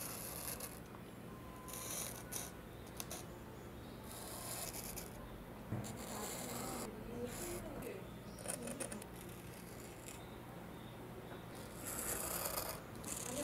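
White paint marker tip scraping across sandpaper-like skateboard grip tape, a dry rasp in several short strokes with pauses between.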